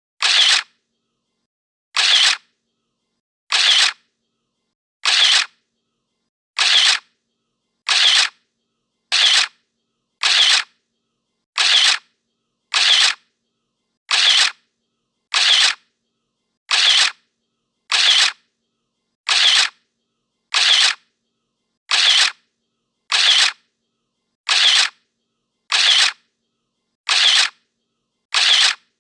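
Camera shutter click sound effect, repeated over and over at an even pace of about one every 1.3 seconds, with dead silence between clicks.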